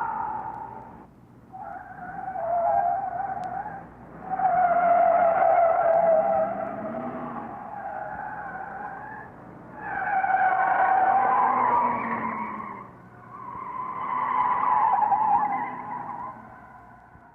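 Car tyres squealing in a series of skids, as in a car chase sound effect. There are about five wavering squeals with short gaps between; the longest runs for about five seconds in the middle, and the last one fades out.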